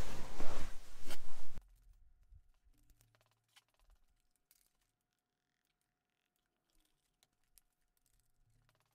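Loud rustling of clothing brushing the microphone for about a second and a half, cutting off abruptly to near silence with a few faint clicks.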